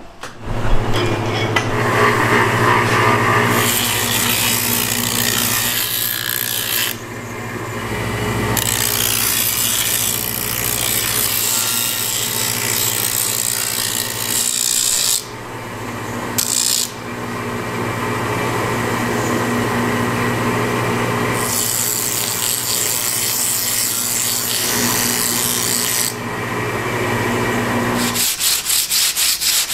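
An electric grinding wheel running while the red, textured covering of a sword scabbard is held against it, rasping in long stretches with brief breaks when the piece is lifted off. Near the end come quick, rhythmic strokes of hand-sanding.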